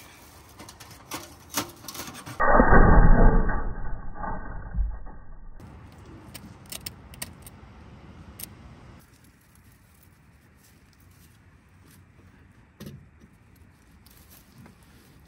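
Metal clinks and rattles as a titanium wood stove is handled, then a few seconds of loud low rumbling, then the sparse crackle of kindling catching in the stove.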